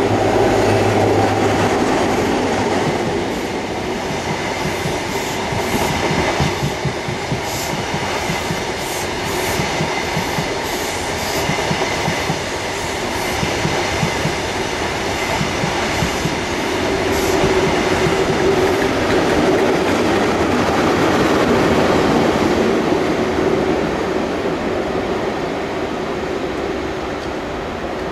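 A diesel HST with Class 43 power cars passing at speed. The leading power car's engine sounds at first, then the coaches' wheels clatter over rail joints in a long run of rapid clicks, and a second engine tone swells about two-thirds of the way through as the rear power car goes by.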